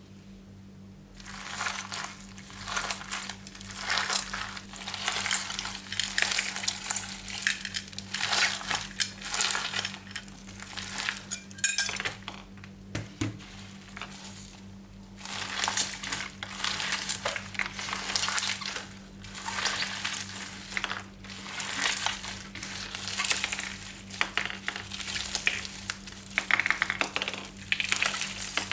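Crunchy slime being squeezed and worked by hand, giving bursts of crackling and popping every second or two.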